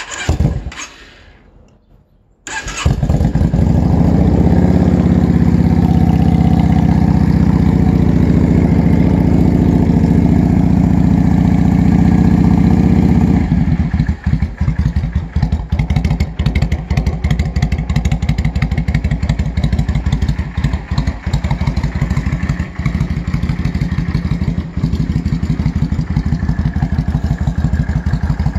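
Yamaha V-Star 650's air-cooled V-twin through Vance & Hines Longshot exhaust pipes being started. There is a short burst at the very start, and the engine fires up about two and a half seconds in. It runs loud and steady, then from about halfway settles into an idle with a distinct, even pulsing beat.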